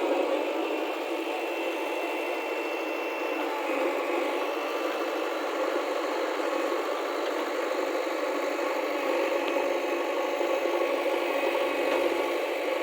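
Heavy diesel engine running steadily with some rattling, from the machinery at a site where a backhoe loader is loading mud into a truck.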